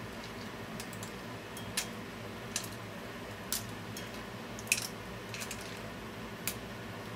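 Chopsticks clicking against asari clam shells and the metal pan as the clams are turned in simmering broth: about six sharp clicks spread out irregularly, the loudest a double click a little past the middle. A steady low hum sits under them.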